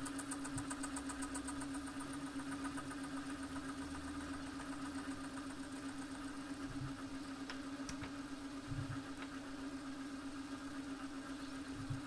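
Milling machine running a slitting saw at about 400 rpm as it cuts a screwdriver slot into a small brass bolt head: a steady motor hum with a faint cutting hiss and a few light ticks.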